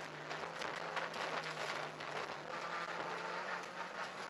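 Opel Corsa Kit rally car heard from inside the cabin, its engine holding a steady note in second gear, under a dense patter of grit and small stones hitting the bodywork on a muddy dirt section.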